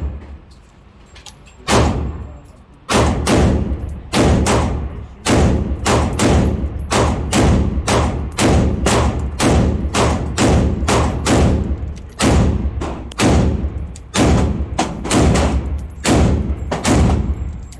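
A Daniel Defense MK18 5.56 mm AR pistol firing in a long semi-automatic string, about two shots a second with a few short pauses. Each shot is a sharp crack with a ringing tail.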